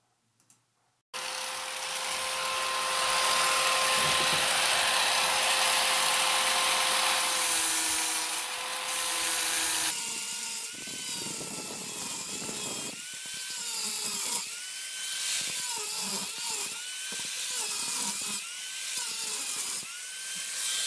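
A high-speed power cutting tool cutting through the stuck remnant of an old freewheel on a Razor MX650 electric dirt bike's rear hub. It starts suddenly about a second in and runs steadily at one pitch. From about halfway it is pressed into the metal and eased off again and again, its pitch dipping and rising each time.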